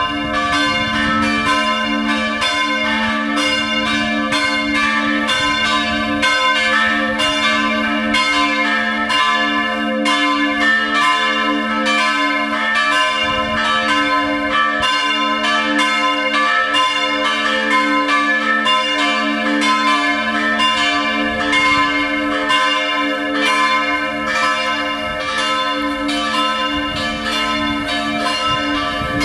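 Full peal of three swinging church bells tuned a', c'', d'': two St. Florian bells cast in 1956 and a 1923 Böhler cast-steel bell, ringing together in a continuous, overlapping stream of strokes.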